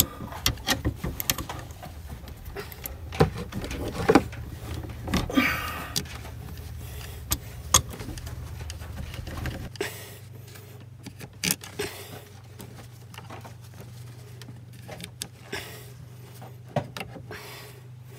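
Irregular metallic clicks, knocks and rattles of a helical steering cable being pushed by hand into a rotary boat-steering helm, its spiral-wound core ratcheting against the helm gear and getting harder to push. A steady low hum runs underneath, its deepest part dropping out about ten seconds in.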